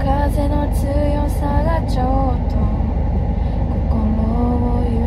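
A woman's voice singing a tune in held, gliding notes inside a car, over the vehicle's steady low engine and road rumble.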